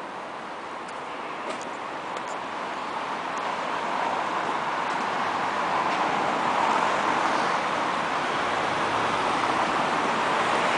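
Road traffic noise: an even rush with no clear engine note that grows steadily louder over the first six seconds or so and then holds.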